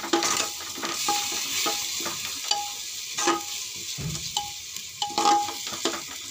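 Metal spatula stirring basmati rice as it fries in ghee in a pressure cooker, with a steady sizzle. The spatula scrapes and clinks against the pot about once or twice a second, each stroke ringing briefly.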